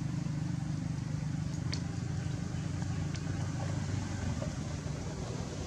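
Steady low engine hum, like a motor vehicle running at idle, easing off about four and a half seconds in, with a few faint ticks over it.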